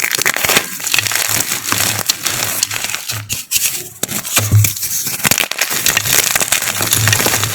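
A large chunk of chalk being crushed and crumbled, giving a dense, continuous crunching crackle of many small cracks.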